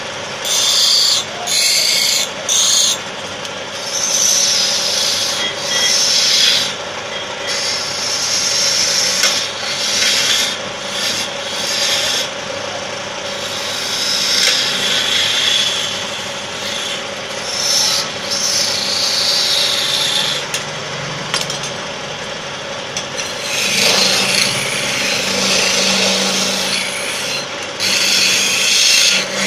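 Wood lathe spinning a wooden spindle while a hand-held turning chisel is pressed into it in repeated passes. Each pass is a scraping cut that swells and fades every few seconds, over the lathe motor's steady hum.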